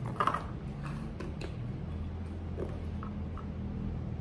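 A few light clicks and taps in the first second and a half as a handbag and a small tape measure are handled, over a steady low hum.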